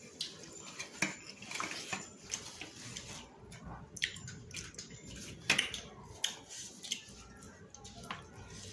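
Wet squelching and smacking of a bare hand mashing and mixing rice on a metal plate, with irregular sharp clicks as the fingers hit the plate.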